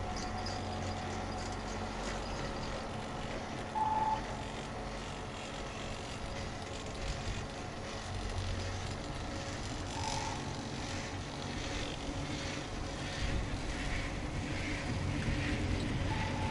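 Anzen Sakudo pair chairlift's very short station chime sounding three times, about six seconds apart, each a brief high beep, over the steady running hum of the lift.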